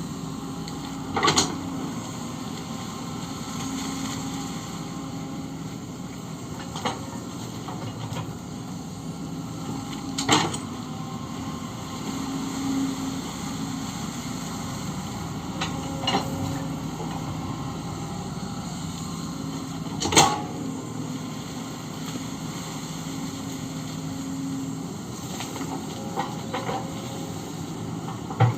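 Kobelco SK130 excavator's diesel engine running steadily under working load, with a hydraulic hiss. Sharp knocks come every few seconds, about six in all, the loudest near the middle and two-thirds of the way through.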